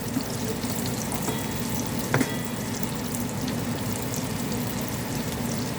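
Small shrimp frying in hot oil in a pan, a steady sizzle with scattered crackles, nearly done and turning crispy. A single sharp click about two seconds in.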